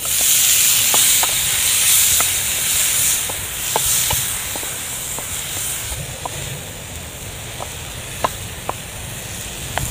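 Chopped tomatoes going into hot oil with sautéing garlic, onion and ginger in a frying pan, sizzling loudly as they go in and easing to a steadier sizzle after a few seconds, with scattered sharp pops.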